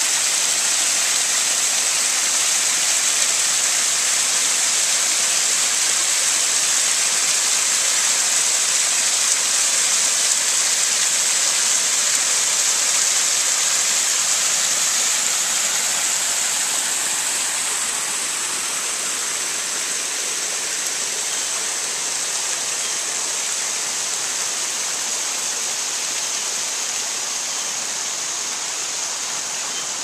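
Small cascading waterfall splashing over stone ledges: a steady hiss of falling water, getting a little quieter about halfway through.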